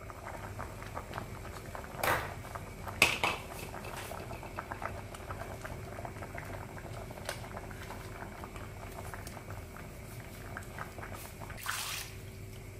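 A pot of dal sambar boiling, bubbling and popping steadily. Two sharp metallic clanks about two and three seconds in come as the steel lid is lifted off, and there is a short scrape near the end as ground masala paste is poured in from a mixer jar.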